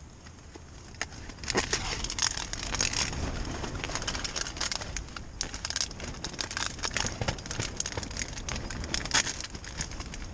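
Plastic bag and packaging rustling and crinkling in irregular bursts, starting about a second and a half in, over a low steady hum.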